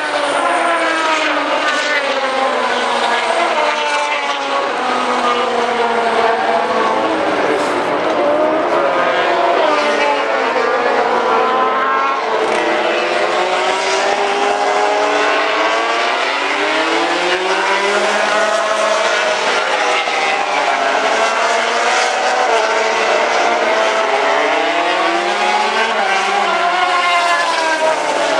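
Several racing motorcycle engines lapping the circuit, their pitches overlapping and rising and falling over and over as they accelerate, shift up and slow for corners.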